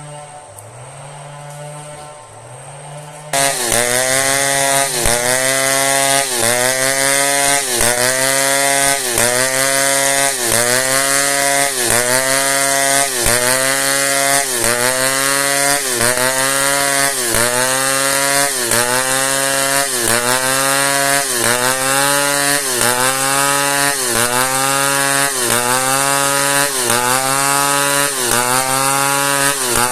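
Two-stroke chainsaw idling, then throttled up about three seconds in and cutting into a hard merbau log. Its engine pitch dips under load and recovers about once a second as the chain bites.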